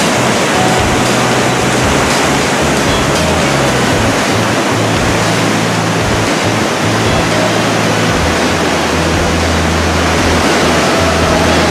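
Steady, loud roar of the Athabasca Falls: heavy whitewater pouring through a narrow rock gorge.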